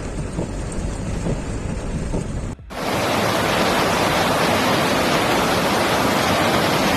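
Flash-flood water noise, a steady rushing hiss. It breaks off abruptly about two and a half seconds in, then comes back louder.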